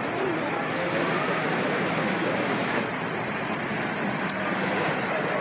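Steady outdoor background noise, an even rushing hiss, with a faint low hum that comes in partway through.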